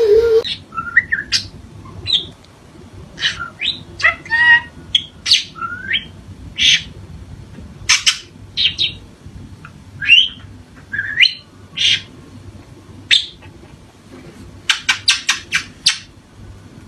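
Budgerigar chirping and squawking in short, separate calls, some sliding up or down in pitch, with a quick run of about six short chirps near the end.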